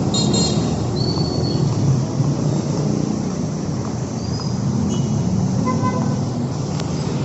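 Busy city street traffic: a steady, loud rumble of passing vehicles, with a few brief high-pitched tones over it, such as horn toots or brake squeals.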